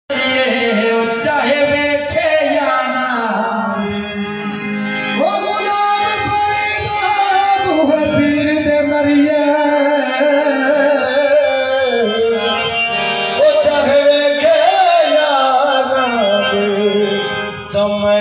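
Qawwali: a male lead singer singing a slow, wavering Sufi melody, accompanied by two harmoniums and a drum keeping time.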